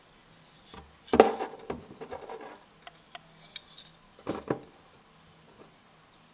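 A front-flipper folding knife with a wooden handle and titanium liners being handled: a knock and rubbing about a second in, a few light ticks, then two sharp clicks a fifth of a second apart as the blade swings.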